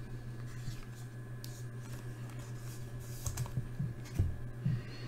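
Trading cards being handled and set down on a tabletop: light, scattered clicks and rustles of card stock, busier near the end, over a steady low hum.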